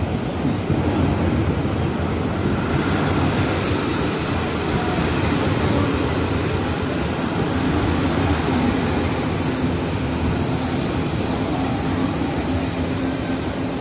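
Taiwan Railways Chu-Kuang express passenger carriages rolling past at speed: a steady rumble of steel wheels on rail.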